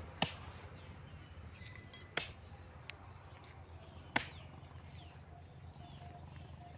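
Steady high-pitched chirring of insects in the grass. Three sharp knocks about two seconds apart cut through it, with a fainter click between the second and third.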